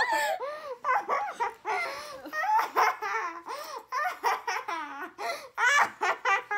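Girls laughing hard: high-pitched giggles and squeals in quick runs broken by short pauses.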